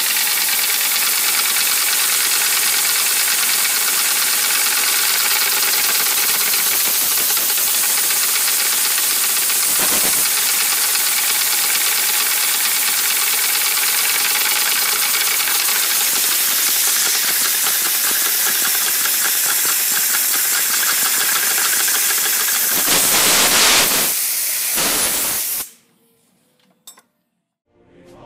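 Hardware-store steam engine running on compressed air: a steady hiss of air escaping through its copper pipework, with fast, even pulses from the piston strokes. It grows louder briefly, then cuts off suddenly about 26 seconds in.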